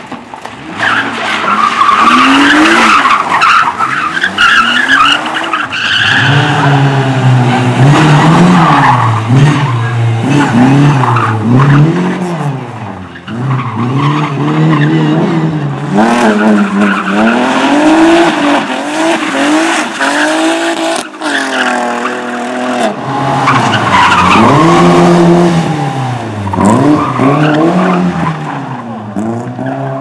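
Competition cars, BMW 3 Series sedans among them, driven hard on a dusty course. Their engines rev up and drop back again and again through the turns, and the tyres skid and squeal.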